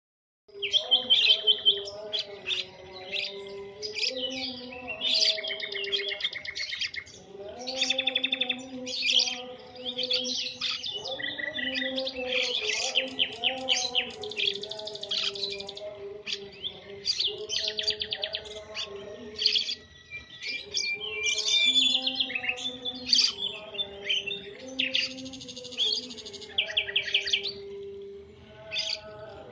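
Songbird chirping and twittering in fast, varied phrases and trills, almost without pause, over a low wavering hum of held tones.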